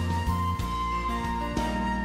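Gentle background music: a soft, tender melody with flute-like held notes over a light steady beat.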